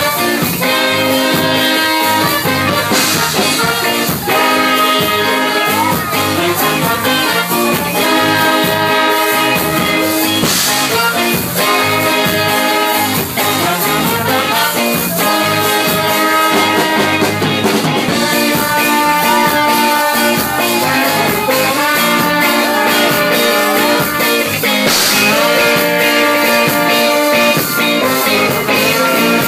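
A band playing an upbeat song, with horns holding sustained lines over the rhythm.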